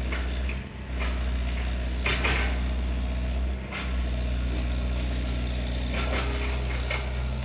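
Excavator's diesel engine running steadily, with a few short metallic clanks and knocks.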